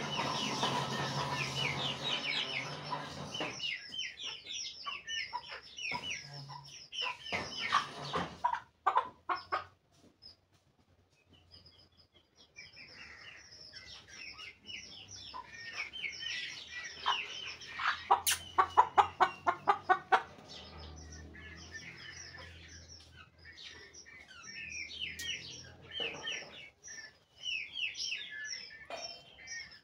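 Aseel chickens calling: a hen clucking and chicks peeping in quick, high chirps. The calls come and go, dropping away briefly about ten seconds in, with a louder run of rapid calls around eighteen seconds in.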